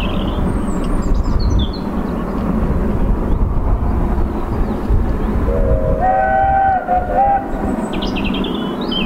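A distant steam locomotive whistle sounds for about two seconds past the middle, a chord of several tones that steps up in pitch near its end, over a steady low rumble. Small birds chirp about a second in and again near the end.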